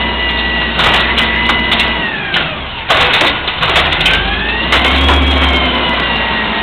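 Amrep automated side loader garbage truck working its hydraulic arm to dump a trash cart. The engine revs up for the hydraulics with a high whine that holds, drops about two seconds in, then rises again and holds. Sharp knocks and bangs come as the tipped cart is shaken against the stops over the hopper, the loudest about three seconds in.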